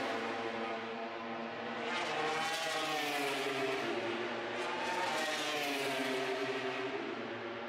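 Racing motorcycle engines running at speed around the circuit: several overlapping engine notes rising and falling in pitch as the bikes accelerate and change gear, swelling and fading.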